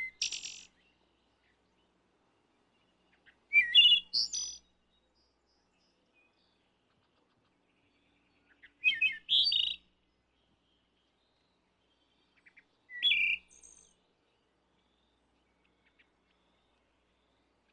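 Wood thrush singing: short, separate flute-like song phrases, each a few quick low notes rising into a higher, trilled ending, spaced several seconds apart. The end of one phrase comes right at the start, three more follow about four to five seconds apart, and the last few seconds are silent.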